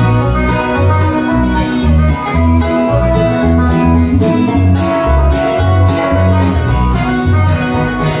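Bluegrass band playing an instrumental break, banjo and guitar picking over a steady bass line, with no singing.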